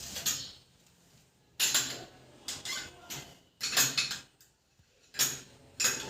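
Six short scraping, clattering noises of hand work on a wall mixer's metal fittings, coming irregularly about a second apart.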